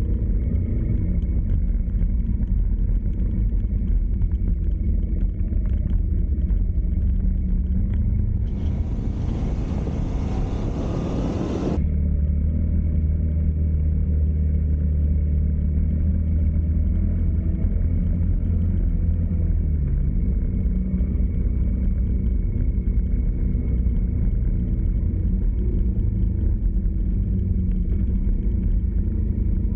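A car driving: a steady low engine and road rumble, broken about a third of the way in by a rushing hiss that lasts about three seconds and then cuts off.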